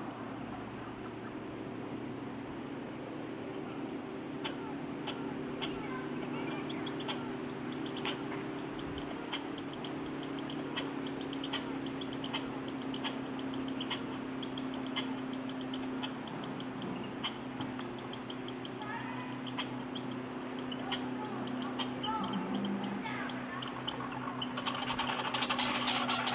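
A long run of short, high chirps, about one or two a second, over a faint low hum. Near the end this gives way to a sudden burst of rapid, high chattering: a red squirrel's territorial chatter as a second squirrel comes to the peanut pile.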